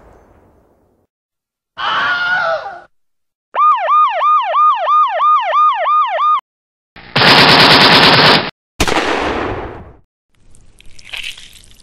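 Sound effects of weapon fire: a blast fading away, a short burst, then a fast warbling electronic tone repeating about three times a second for some three seconds. After that comes a loud burst of rapid fire and another blast that dies away.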